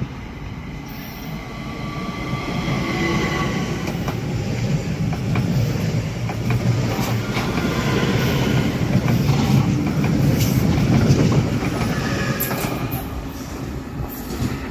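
ÖBB class 4024 Talent electric multiple unit passing along the platform. Its running and wheel noise builds as it nears, is loudest about ten to eleven seconds in, then eases off as it draws away. A thin high tone comes a few seconds in, and there are sharp clicks from the wheels over the rail joints as it goes by.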